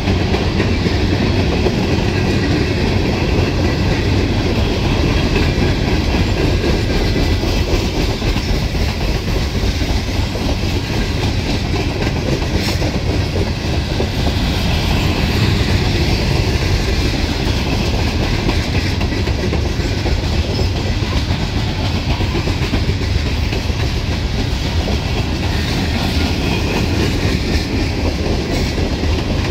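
Loaded Norfolk Southern coke train's open-top hopper cars rolling past, a steady rumble of steel wheels on the rails.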